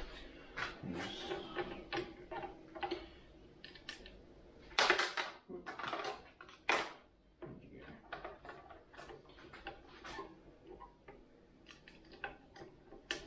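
Small metal clicks, clinks and scrapes of lever-action rifle parts being handled and fitted back together, with a few louder scraping rushes about five to seven seconds in.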